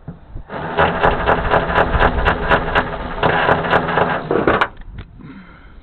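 Handheld power tool running for about four seconds with a steady motor hum and a regular clicking about four times a second, then cutting off sharply.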